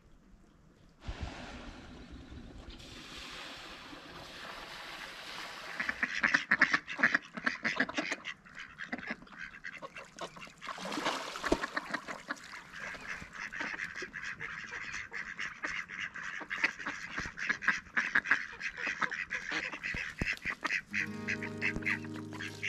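A flock of mallards quacking and chattering, many rapid calls overlapping over a soft hiss; the calling grows louder about six seconds in and keeps up steadily. Music comes in near the end.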